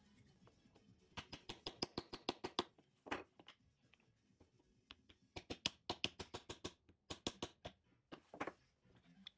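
Light wooden clicks and taps in quick runs, several a second, as wooden wheels are handled and fitted onto the dowel axles of a small wooden toy jeep.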